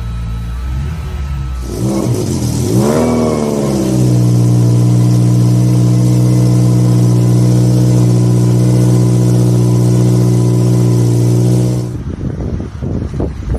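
Ferrari 328's 3.2-litre V8 revved up and down a few times, then held at a steady high engine speed for about eight seconds. Near the end it drops back suddenly and runs unevenly at lower revs.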